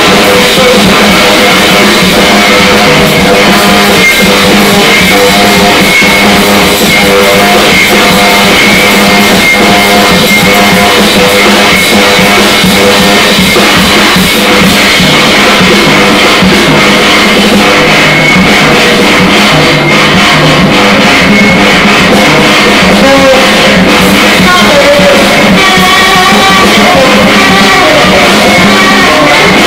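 Tenor saxophone and drum kit improvising free jazz together: the sax plays held, piercing tones over constant drum and cymbal strikes. The recording is very loud and dense throughout.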